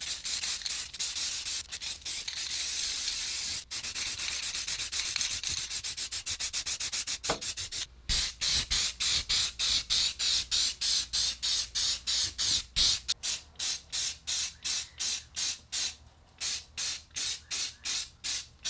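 Aerosol can of high-heat ceramic-coating spray paint hissing: one long spray for the first few seconds, then rapid short bursts about two a second.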